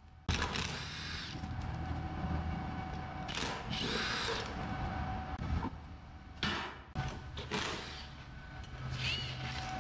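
Cordless power driver running in several short bursts, spinning off the nut that holds a go-kart wheel on its axle so the wheel can be pulled off.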